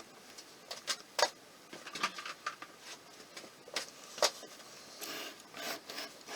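Scattered light clicks and knocks of metal parts being handled while carburettors are fitted, with a short rustle about five seconds in.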